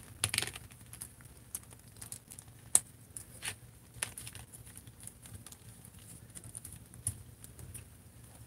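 Small plastic clicks and taps of an action figure and its toy machine gun, with a coiled ammo belt, being handled and fitted into the figure's hand. The clicks are scattered and irregular, the sharpest a little under three seconds in.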